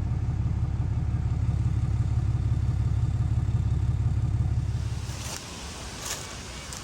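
Vehicle engine running steadily with an even low pulse, then switched off about five seconds in, followed by a few light clicks.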